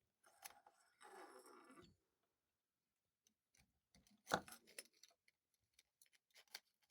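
Faint clinks and rattles of steel TH400 transmission parts being pulled from the case and handled, with a short scrape about a second in and a sharper metal clink a little after four seconds.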